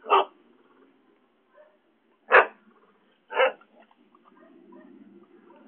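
Three short, sharp animal calls: one at the start, another about two seconds later, and a third about a second after that, with faint rustling in between.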